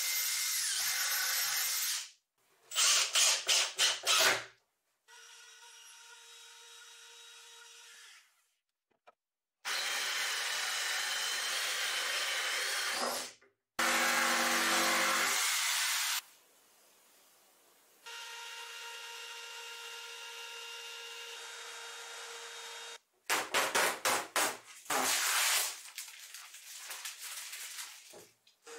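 Workshop power tools in short cut-together stretches: a cordless drill driving screws into plywood, twice in quick stop-start trigger bursts, and several stretches of steady power-tool running, one of them a corded handheld power tool with a lower pitched hum. Between them, quieter stretches of a machine running steadily with a constant tone.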